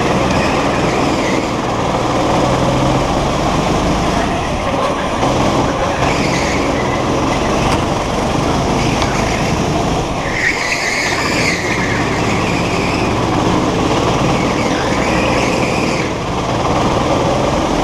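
Go-kart engine running hard, heard from on board the kart, with the tyres squealing through the corners. The loudest squeal comes about ten seconds in, as the engine briefly drops off.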